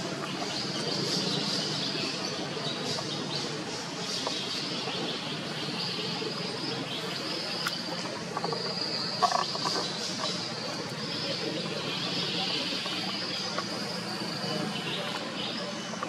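Outdoor ambience of insects buzzing steadily in a high band, over a low background rumble. A short sharp sound about nine seconds in stands out above it.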